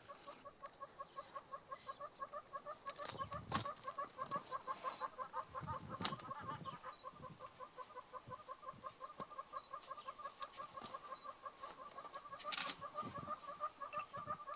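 A rapid clucking animal call, repeating steadily at about five pulses a second, with a few sharp knocks.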